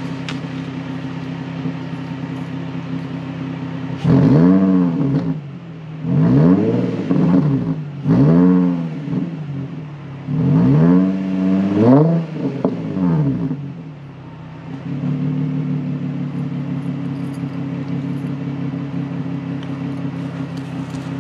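Car engine idling, then revved several times in quick succession, each rev climbing and dropping back. It settles back to a steady idle about fifteen seconds in.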